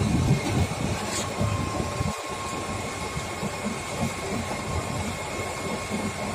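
Sany 47-metre truck-mounted concrete pump running during a concrete pour: a steady engine-and-machinery rumble with uneven low pulsing and a faint steady high whine over it.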